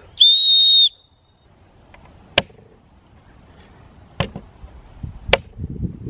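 The Leatherman Signal's ferro-rod signal whistle gives one short, loud, steady high-pitched blast, under a second long. A few seconds later come three sharp knocks, about a second apart, as the multi-tool's pommel is struck down on acorns on a wooden board to crush them.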